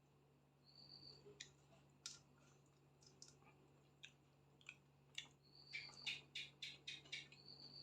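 Soft clicks and smacks of someone eating chicken and rice close to the microphone, scattered at first, then a quick run of about ten clicks over a second and a half near the end.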